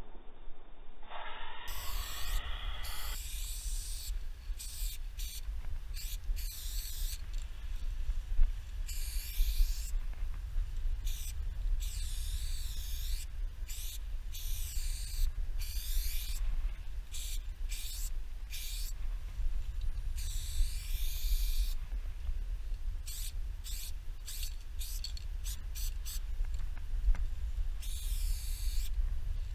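Aerosol spray-paint can hissing in repeated bursts, some brief and some a second or more long, over a steady low rumble.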